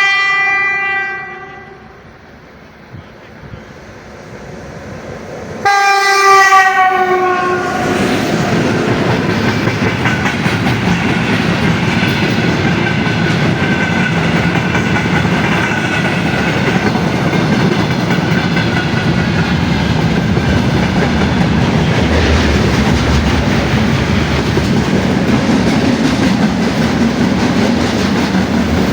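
A train horn sounds, stops, then blasts again about six seconds in with its pitch falling as the train passes, and the train then rolls past steadily with its wheels clattering over the rail joints for the rest of the time.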